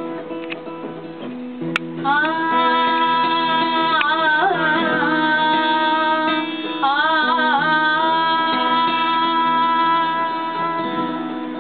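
A woman singing long held notes with wavering ornamented turns, over acoustic guitar accompaniment. Her voice comes in about two seconds in, after the guitar plays alone.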